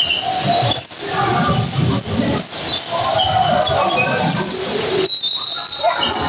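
Basketball sneakers squeaking on a hardwood court in many short, high chirps over the low hubbub of a gym. About five seconds in, one longer steady high squeal holds for about a second.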